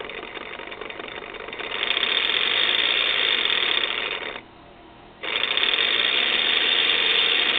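Brushless DC motor of a Holset HE351VE variable-vane turbo actuator spinning its pinion gear, run by an external three-phase controller. It runs quietly at first and grows louder about two seconds in, stops briefly near the middle, then runs again for about three seconds.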